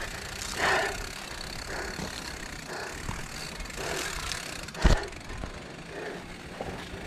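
Mountain bike riding down a rough dirt trail: a steady rumble of tyres on the ground and the bike rattling over bumps, with a sharp knock about five seconds in.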